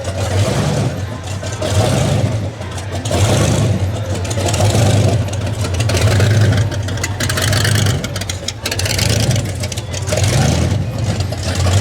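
Car engine running with a low rumble that swells and fades every second or two, over faint background chatter.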